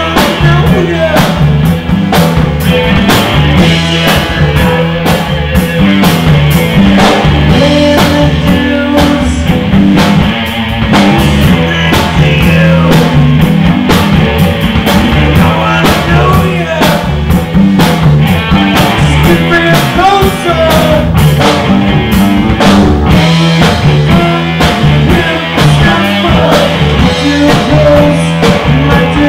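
Loud live rock music from a full band: electric guitars, bass guitar and drum kit playing together.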